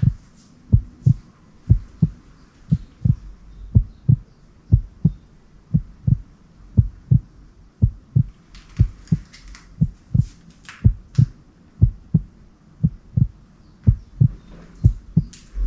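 Slow, steady heartbeat sound effect: paired low thumps, about one pair a second, with a few faint clicks in between.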